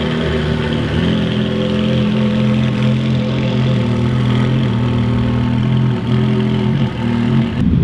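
Car engines idling steadily, with a low, even hum.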